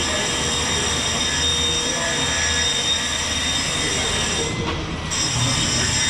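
Diamond grinder grinding dry with no dust extraction: a steady high-pitched whine over rough grinding noise. The highest part of the whine drops out briefly near the end.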